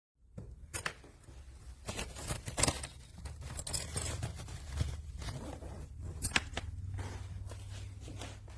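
Telescopic handle of a hardside carry-on suitcase being worked up and down: rattling and scraping with several sharp clacks, over a low rumble. The handle is stiff and sticks even after oiling.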